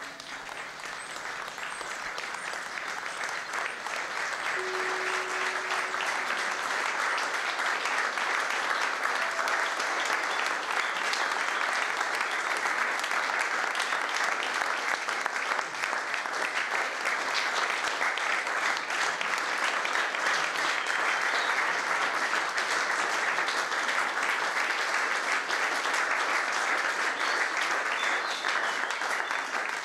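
Audience applauding, the clapping swelling over the first several seconds and then holding steady.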